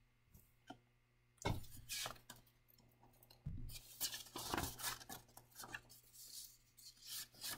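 Faint, intermittent scratchy rustling with a few light knocks, starting about a second and a half in and coming in short bursts.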